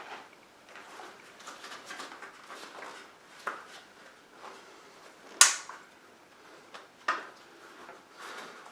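Hands working a bicycle inner tube and its valve into the wheel rim under the tyre: soft rubbing and handling with a few sharp clicks and knocks of the tube, tyre and rim, the loudest a little after halfway.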